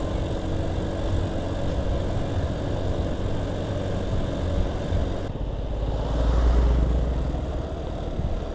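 Honda Vario scooter being ridden, its engine running steadily under the wind and road noise on the rider's microphone. About six seconds in, a louder low rumble swells for a second or two, then eases.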